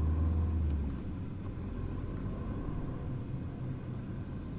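A Ford car's engine and road noise heard inside the cabin while driving, a steady low drone. A strong low engine hum drops away about a second in.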